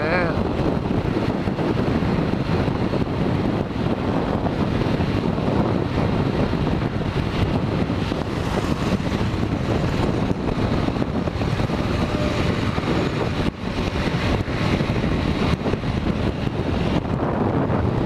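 Strong wind rushing over the camera microphone on a Yamaha XTZ 150 motorcycle riding at expressway speed, a steady loud rush with a brief drop about thirteen and a half seconds in.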